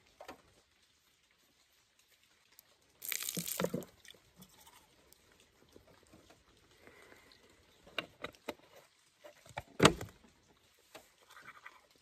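Teeth being brushed with a toothbrush: faint wet scrubbing, with a louder rustling burst about three seconds in and a single sharp knock, the loudest sound, late on.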